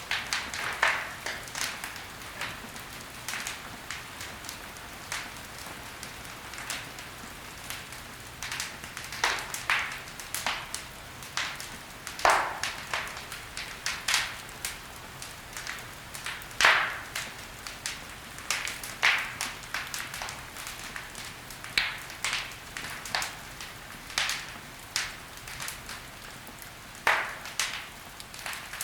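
Wood logs burning in a fireplace: irregular sharp crackles and pops over a soft steady hiss, with a few louder snaps scattered through.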